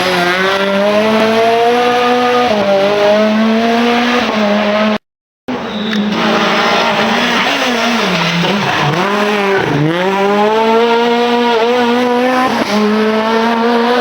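Rally car engine at full throttle, its pitch climbing and falling back at each gear change, with a deep drop around the middle as it brakes and downshifts. The sound breaks off for half a second about five seconds in, where two clips are joined.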